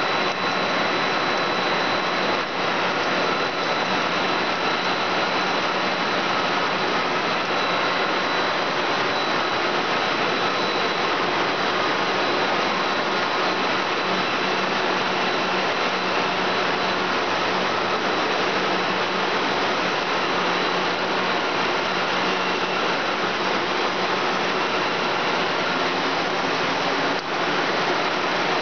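Steady machine noise of a running plastic strand line: a twin-screw extruder with a row of axial fans blowing cooling air over a steel-mesh conveyor belt. A constant high whine and a low hum sit in the noise.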